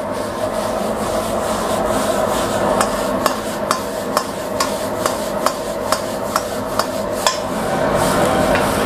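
Fried rice being tossed in a steel wok over a high gas flame: a steady rush of the burner and dry rice sliding on the hot metal, the rice frying without oil. Through the middle of the stretch, sharp metal knocks come about twice a second with the tossing.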